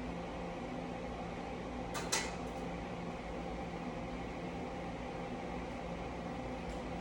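Steady mechanical hum of a small electric motor or fan, with a single sharp click about two seconds in.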